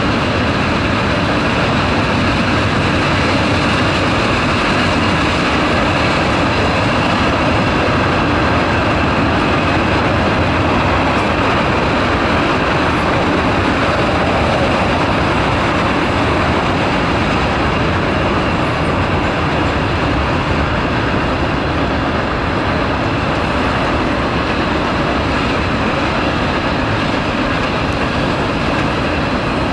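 Freight cars of a long manifest train rolling past: steel wheels on the rails making a steady, unbroken rolling noise.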